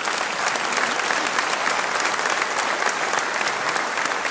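Large audience applauding, the clapping holding steady.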